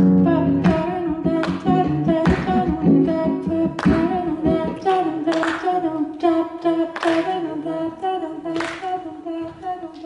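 Acoustic guitar strummed in an even, unhurried rhythm, about one strum every second, with the chords ringing between strokes, in the closing bars of a song.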